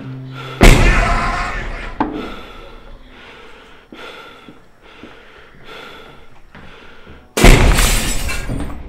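Two loud, sudden crashes about seven seconds apart, each dying away over a second or more, with a single sharp knock about two seconds in.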